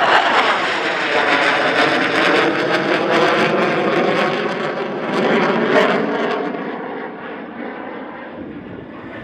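USAF Thunderbirds F-16 jet passing by, loud at first and holding until about two-thirds through, then fading away.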